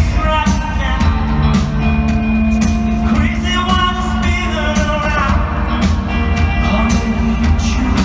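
Live rock band playing a song: a male lead vocal sung over electric guitar, bass and a drum kit with steady beats, heard from the audience through a hall's PA.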